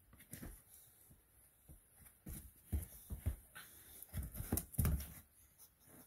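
Boxer puppy and adult boxer play-wrestling: scuffling and soft bumps of bodies and paws on a padded dog bed, in irregular bursts that are loudest about four to five seconds in.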